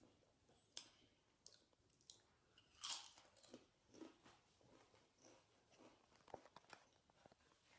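Faint crunching and chewing of Doritos tortilla chips, in short irregular crunches with one louder crunch about three seconds in.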